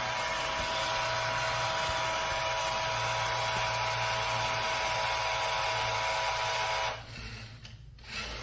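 iRobot Roomba j7+ vacuum motor running steadily, a wide hiss with a constant whine, then cutting off abruptly about seven seconds in.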